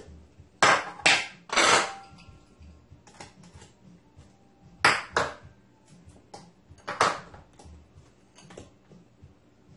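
Plastic clicks and knocks from an electric mini food chopper being opened and refilled, with the motor off: the lid coming off, pineapple chunks dropped into the bowl, and a utensil knocking against the plastic bowl. A handful of sharp knocks, the loudest cluster in the first two seconds and more about five and seven seconds in.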